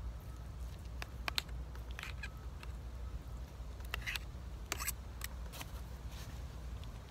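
Short, irregular clicks and scrapes of a fork working food on a metal camp pan, over a low steady rumble.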